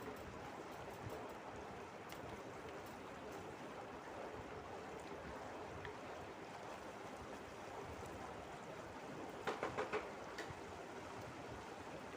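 Masala paste frying in a pan, a steady sizzling hiss. A few quick clicks about ten seconds in.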